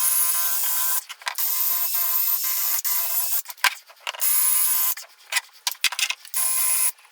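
Power tool spinning a nylon cleaning wheel against a differential housing's mating face, a steady whine with scrubbing noise in several bursts of one to two seconds with short breaks, cleaning the surface for sealant.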